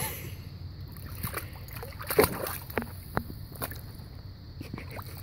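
Water sloshing and splashing in a plastic kiddie pool as a dog paws and noses at the bottom, with a handful of sharper splashes between about one and four seconds in, the loudest a little over two seconds in.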